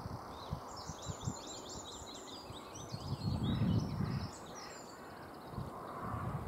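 Willow warbler singing one song phrase: a quick run of high, thin notes lasting about three seconds. A low rumble on the microphone swells midway through.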